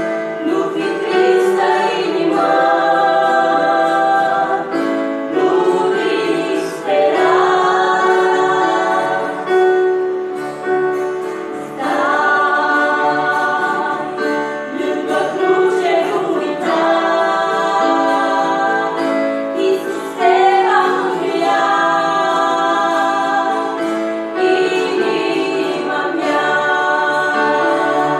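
Two women singing a Christian hymn into microphones, with a keyboard playing held chords beneath the voices.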